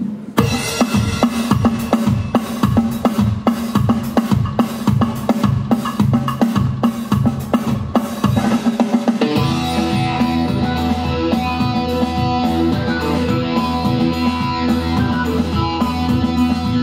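Instrumental introduction of a recorded backing track played over the hall's speakers: a steady drum-kit beat, joined about nine seconds in by a bass line and a fuller band arrangement.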